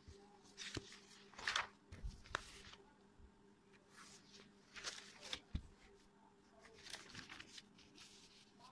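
Paper sketchbook pages being handled and turned, soft rustles and light clicks coming a few times at irregular moments, over a faint steady hum.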